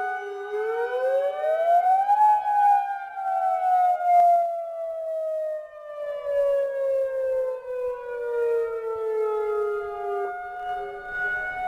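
Federal Signal 2001-130 mechanical siren and Modulator II 5020B electronic siren sounding the attack (wail) signal together. The pitch climbs quickly to a peak about two seconds in, then slides slowly back down, with the two sirens' tones overlapping. The level rises and falls unevenly.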